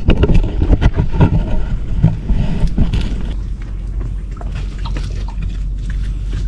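A crab hook being worked into a mud crab's burrow: a quick run of knocks and scrapes, thickest in the first three seconds, then rougher scraping with scattered clicks, over a steady low rumble.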